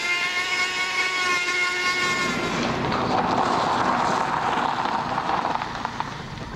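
Handheld rotary grinder whining at a steady high pitch, then changing to a coarse grinding hiss about two and a half seconds in, which fades near the end.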